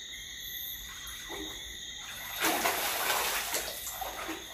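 Water splashing and rushing, loudest for about a second starting about two and a half seconds in, over a steady high-pitched ringing.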